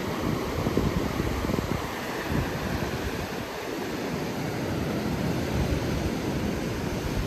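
Wind buffeting the microphone in uneven gusts over the steady wash of North Sea surf breaking on the beach.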